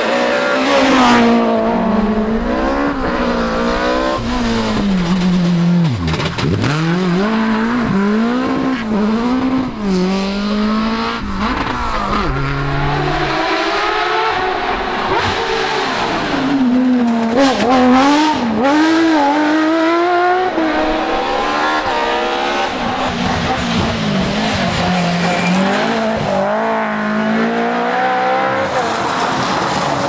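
Rally car engines at full throttle, one car after another: a BMW E30 3 Series, a Porsche 911 and a Nissan 350Z. The engines rev up through the gears with a drop at each shift, and rev and fall again when the drivers lift for corners.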